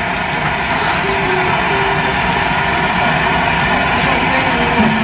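A fishing boat's engine running steadily and loudly, with a low, even chugging under a broad noise.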